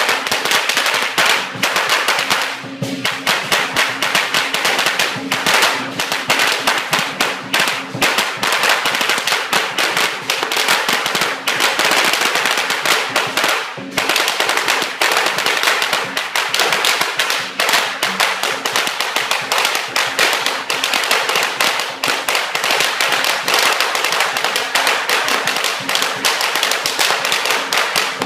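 A long string of firecrackers going off, a dense, continuous rapid crackle of sharp pops that barely lets up.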